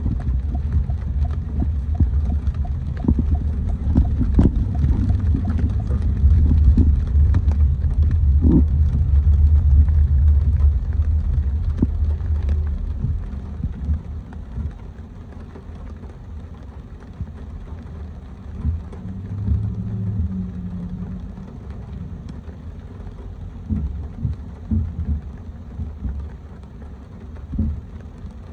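A car driving on wet streets in the rain: a steady low road-and-engine rumble with scattered taps of rain. The rumble drops off about halfway through.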